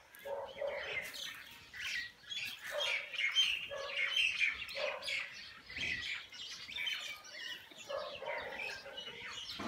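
Small birds chirping again and again in quick, high notes.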